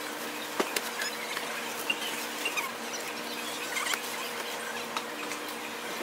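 Grocery store ambience: a steady hum under scattered short squeaks and a few sharp clicks, the sharpest a little over half a second in.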